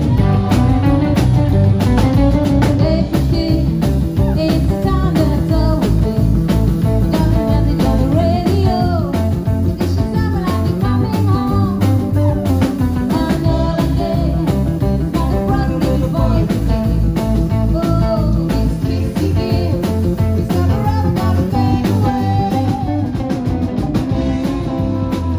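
Live rockabilly band playing with a steady beat: electric guitars over upright double bass and drum kit.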